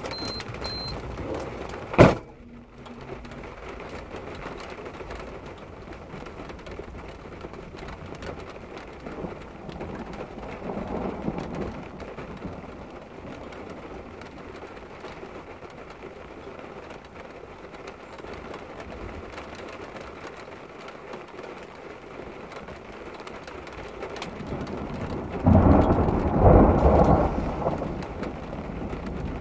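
Steady rain, with a sharp click about two seconds in. A loud rumble of thunder comes near the end, lasting a few seconds.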